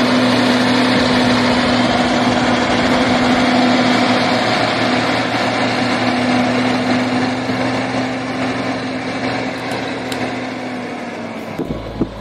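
Heavy diesel engine of a Ural 6x6 truck running steadily as it drives slowly past through the mud. It grows fainter over the last few seconds as the truck moves on.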